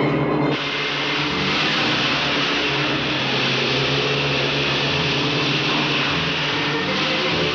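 Fast outboard motorboat running at speed: a steady engine drone under hissing, rushing spray, cutting in suddenly about half a second in.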